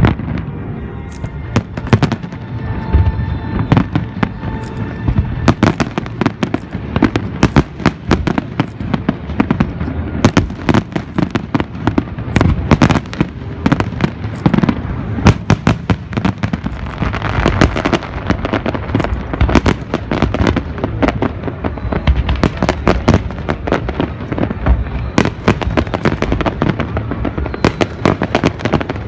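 Fireworks display: a dense, continuous run of bangs and crackles, with music playing underneath.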